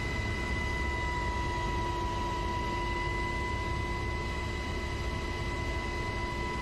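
Aircraft engine noise heard from inside the cabin: a steady drone and rumble with a constant high whine over it.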